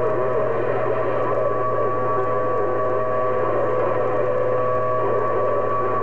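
HR2510 radio receiving a busy channel on 27.025 MHz between transmissions: static and hum with several steady whistle tones from overlapping carriers, and faint garbled voices underneath.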